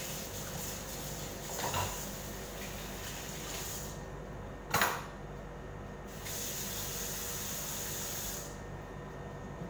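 Kitchen tap running into the sink while dishes are rinsed. The water shuts off about four seconds in, a dish clinks sharply just before five seconds, then the tap runs again for about two seconds and stops.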